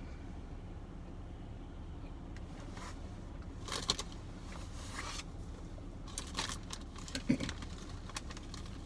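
Paper and plastic food wrapping rustling and crinkling as a hand rummages through it, in a few short bursts about four seconds in and again near the end, over a low steady background rumble.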